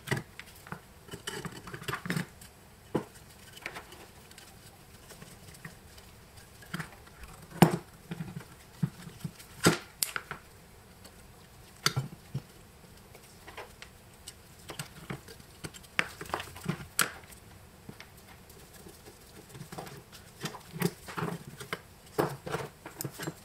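Irregular clicks, taps and metal knocks of a screwdriver and small metal parts as the bell ringer and other pieces are taken off a vintage crank telephone's metal base plate. The sharpest knocks come about eight and ten seconds in.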